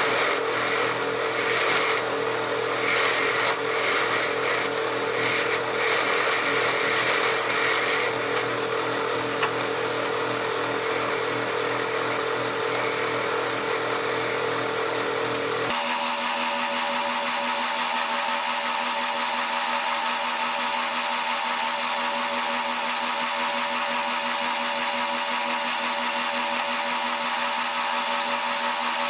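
A lathe running steadily while a hand-held chisel cuts into a spinning wooden spindle. About halfway through, the sound changes abruptly to a steadier, higher hum.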